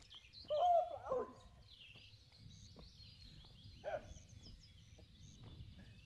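Small birds chirping in the background over a low outdoor rumble. A short, wavering pitched cry stands out about half a second in, and a briefer one comes near four seconds.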